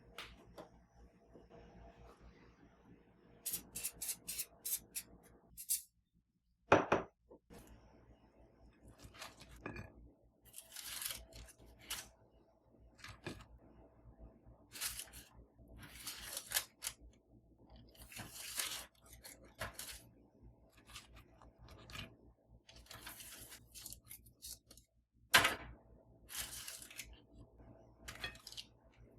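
Close-up household handling sounds: packaging rustling and crinkling, with light clicks and a couple of sharper knocks of items being set down.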